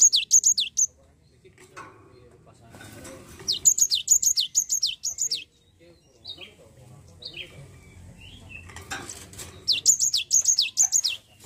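Cinereous tit (gelatik batu) singing three bursts of rapid, high, down-slurred notes, about five a second, with softer single calls between the bursts.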